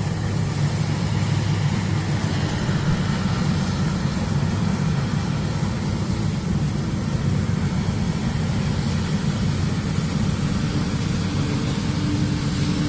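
Combine harvester running steadily, a dense low engine drone; a steady higher hum joins about ten and a half seconds in.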